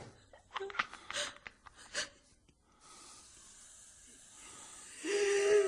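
A person breathing in short, sharp gasps, then a steady faint hiss. Near the end comes a brief held vocal sound, a moan or cry, the loudest part.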